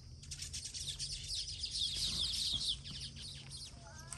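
A colony of baya weavers chattering: a dense chorus of fast, high chirps that swells to its loudest about two seconds in, then thins out.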